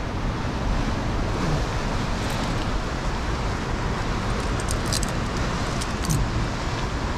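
Steady rush of ocean surf breaking at the foot of a sea cliff, mixed with wind on the microphone, with a few faint clicks around the middle.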